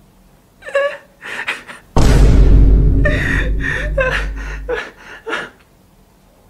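A man laughing heartily in gasping bursts. About two seconds in, a sudden loud rushing noise with a deep rumble comes in over the laughter and fades out near the five-second mark.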